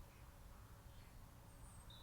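A few faint, short bird chirps over a low steady rumble, close to silence.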